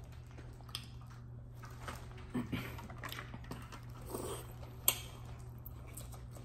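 Biting and chewing with a plastic food bag and plastic gloves rustling, scattered small clicks and crinkles; one sharp click about five seconds in. A steady low hum lies underneath.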